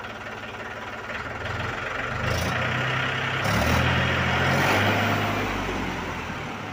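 Mahindra 265 DI Power Plus tractor's three-cylinder diesel engine revved from idle: the engine note climbs over a couple of seconds, holds at its loudest in the middle, then eases back down toward idle near the end.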